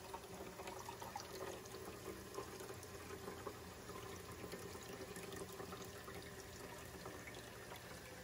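Faint, steady trickling and splashing of water as a filling aquarium reaches its overflow boxes and spills down the drain pipes toward the sump filter.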